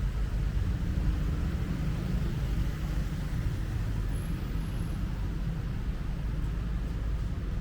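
Street traffic noise: a steady low rumble of cars and other road vehicles.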